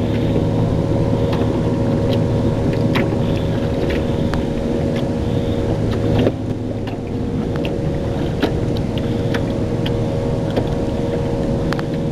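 An engine drones steadily as a low hum, dropping a little in level about halfway through, with scattered light clicks.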